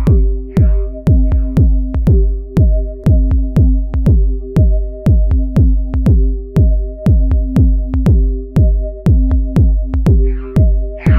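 Background electronic music with a steady drum-machine beat over held notes.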